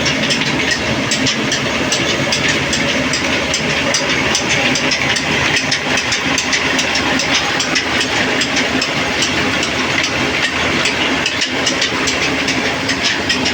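Steady machinery noise: a constant low hum under a dense, even crackle of fine clicks.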